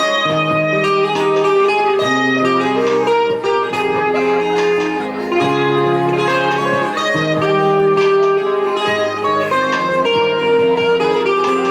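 Instrumental break of a song: music led by a plucked string instrument, over a bass line that steps to a new note every second or two.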